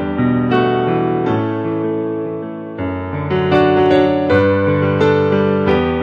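Solo piano playing slow music: chords struck every second or so and left to ring and fade, with a melody line held above them.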